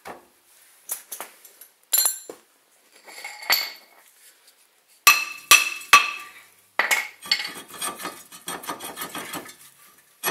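Steel tools and brake parts clinking and rattling as a brake rotor is worked loose from a car's front wheel hub, with three sharp ringing metal strikes about halfway through and denser rattling near the end.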